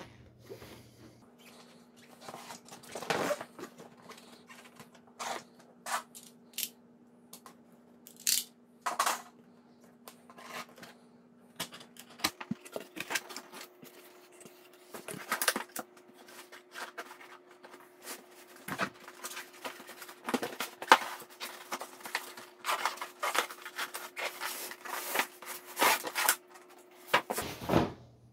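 Cardboard box and plastic packaging being handled and opened: irregular rustling, scraping and tearing with sharper clicks and knocks, over a faint steady low hum.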